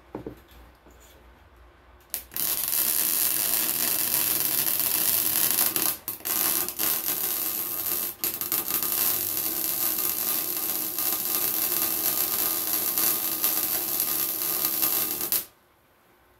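Welding arc crackling and hissing as a bead is run along a cracked ATV exhaust pipe. It starts about two seconds in, breaks off twice briefly, and stops abruptly shortly before the end.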